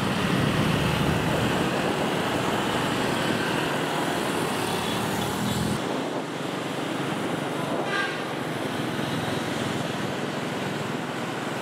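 A train running on track laid in a city street, mixed with road traffic noise. The low rumble cuts off suddenly about six seconds in, and a short horn toot sounds about eight seconds in.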